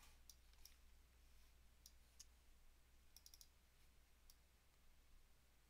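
Faint computer mouse clicks over near silence: a handful of single clicks, and a quick run of three or four about three seconds in.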